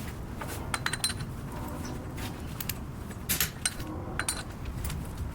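Irregular metallic clinks and taps from hand tools, sockets and lug nuts being handled while a wheel spacer is fitted, some with a short ringing tone.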